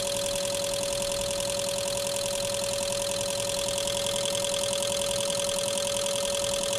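Fuel injector test bench running its injectors at a simulated 1,500 rpm, the injectors pulsing rapidly and evenly as they spray into the measuring tubes, over a steady hum.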